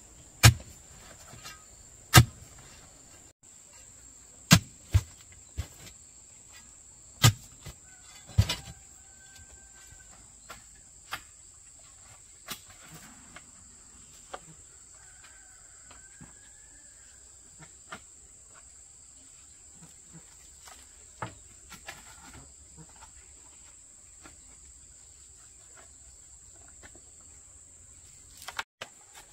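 Steady high-pitched insect drone, like crickets or cicadas, with about six sharp knocks in the first nine seconds and fainter scattered ticks after them.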